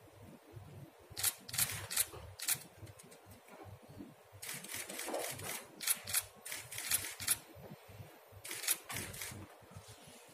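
Camera shutters clicking in short rapid bursts of several shots each, three clusters in all.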